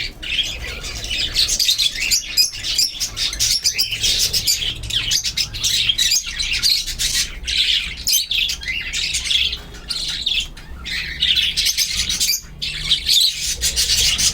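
Several budgerigar chicks chirping: a dense, continuous stream of quick, high, overlapping calls.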